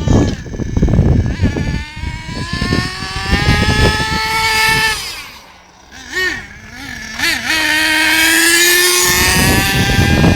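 Radio-controlled car's motor whining under throttle: the pitch climbs over a few seconds, falls away and wobbles with short throttle blips, then holds steady for a couple of seconds. Low rumbling noise underneath is loudest at the start and end.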